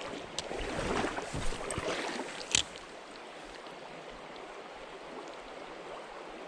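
Creek water running steadily, with louder rustling noise for the first couple of seconds, a light click, and a sharp knock about two and a half seconds in.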